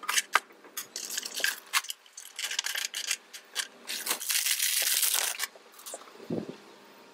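Handling noises from threading a Juki industrial sewing machine: sharp clicks and rustling scrapes as the thread is worked through the guides, with a longer stretch of rustling in the middle and one dull thump near the end.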